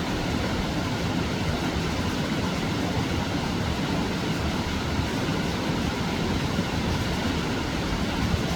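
Mountain stream water rushing steadily over rocks, a constant even rush without change.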